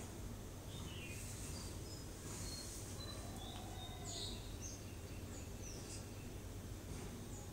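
Faint room background with a steady low hum, over which small birds give scattered short, high chirps and brief falling whistles.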